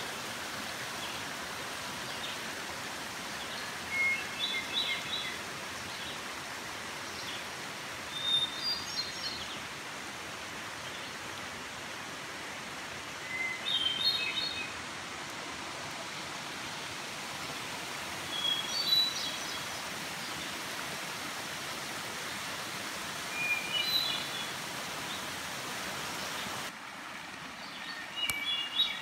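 Steady rushing of a shallow, rocky stream, with a songbird singing a short phrase about every five seconds over it. Near the end the rushing drops to a quieter level.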